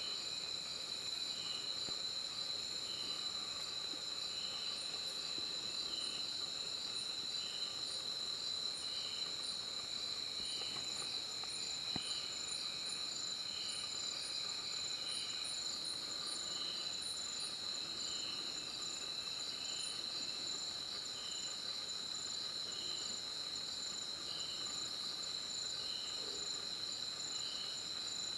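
Night insect chorus: a steady high-pitched cricket trill, with another insect chirping about once a second over it.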